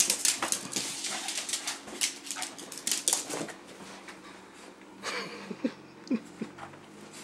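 A quick run of footsteps and knocks across a tiled floor, then a small dog gives about three short whimpers.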